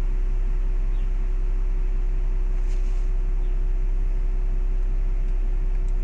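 Steady low rumble and fan-like hiss of a stationary car running, heard from inside the cabin, with a constant mid-pitched hum.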